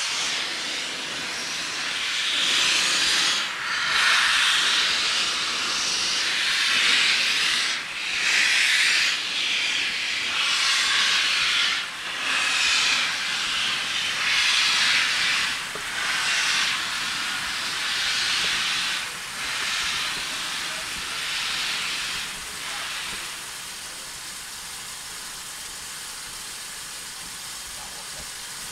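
LMS Stanier Black Five 4-6-0 steam locomotive No. 5025 letting off steam: loud hissing in repeated bursts, about a dozen with short breaks between them, that dies down to a quieter steady hiss near the end.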